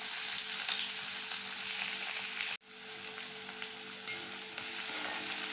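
Freshly added chopped onions sizzling as they fry in hot oil in a kadai. The sizzle drops out for an instant about halfway through, then carries on a little quieter.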